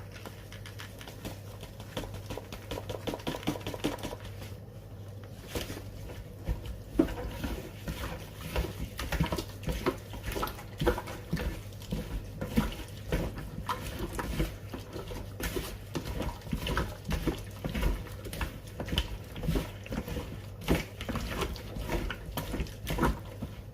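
Hands squeezing and mixing chicken drumsticks in a wet marinade of egg and flour in a bowl: irregular wet squelches and pats, over a low steady hum.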